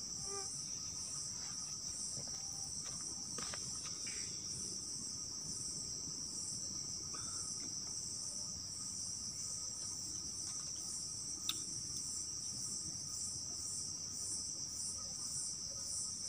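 Steady high-pitched chorus of crickets and other night insects in forest, with a faster pulsing trill layered above it. A single sharp click about two-thirds of the way through.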